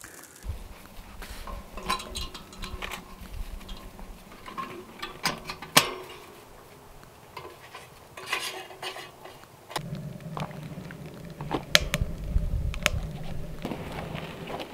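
Metallic clinks and knocks from a stainless-steel G Stove camp wood stove as its door and firebox are handled while the fire is being lit. A low rumble joins in about ten seconds in.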